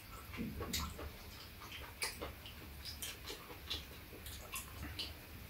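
Metal chopsticks clicking lightly and irregularly against stainless bowls and a metal tray as food is picked up, about ten scattered clicks.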